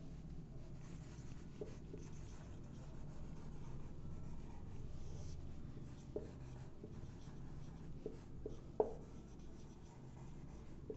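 Marker pen writing on a whiteboard: faint scratching strokes with a few light ticks as the tip meets the board.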